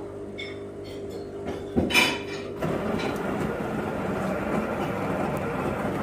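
WMF bean-to-cup coffee machine starting a cappuccino: a low hum, a clunk about two seconds in, then a louder steady mechanical whirr as the machine runs.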